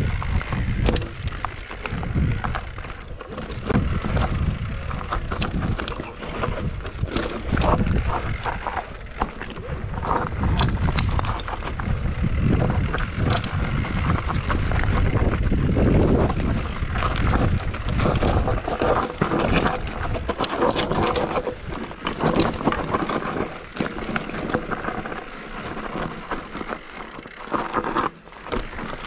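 Mountain bike ridden fast down a rough trail: wind rumbling on the microphone, with constant rattling and frequent sharp knocks from the bike over bumps and rocks.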